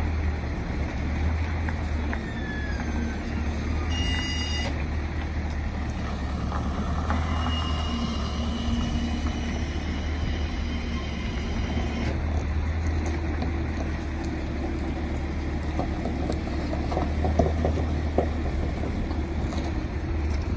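Heavy truck and multi-axle low-loader trailer rolling slowly past with a steady low rumble, and wind buffeting the microphone. A brief high-pitched tone sounds about four seconds in.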